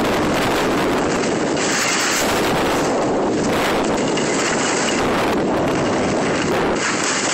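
Wind rushing over the microphone together with the hiss and scrape of skis sliding on packed snow, swelling and easing every second or so with the turns.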